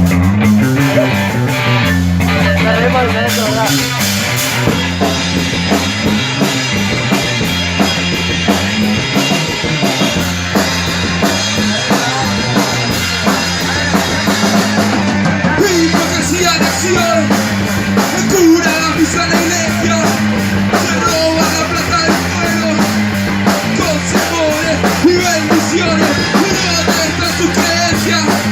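A rock band playing an instrumental passage: guitar, bass and a drum kit, with the drums pounding steadily from about three seconds in.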